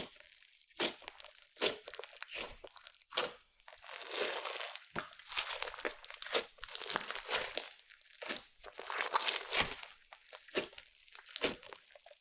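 Hands squeezing, pressing and stretching slime mixed with makeup and glitter: irregular crackling, squelching squishes with sharp little pops, some quick and some drawn out over a second or so.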